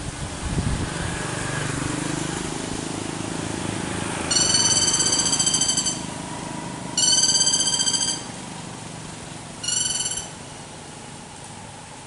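Lesser goldenback woodpecker (black-rumped flameback) giving three loud, harsh trilled rattling calls, each shorter than the last: about four seconds in, about seven seconds in and near ten seconds.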